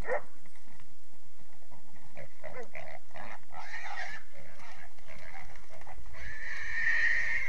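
Young feral hog (a gilt) squealing as the catch dogs get hold of it: short squeals at first, then one long, high squeal near the end.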